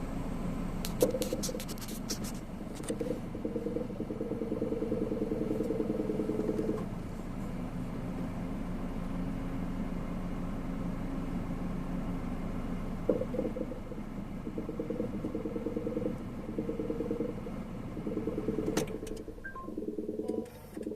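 Honda N-BOX Custom air conditioner making a rapid gurgling "kobo-kobo" noise in bouts of a few seconds, over a steady hum, with a few sharp clicks. The owner says it comes between the fan stopping and starting again, is quite loud in person, and asks whether it is normal for this car.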